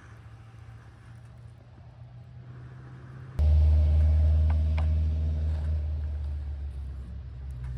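A faint low hum, then about three seconds in a loud, low mechanical rumble starts abruptly and slowly fades.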